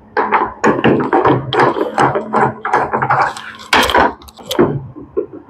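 Hard plastic clattering, knocking and scraping as a top-loading washer's control panel housing is unscrewed and worked loose with a screwdriver: a dense string of short knocks and rattles.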